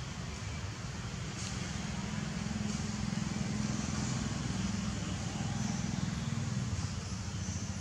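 A low engine drone over a steady hiss, growing somewhat louder about two seconds in and easing again near the end.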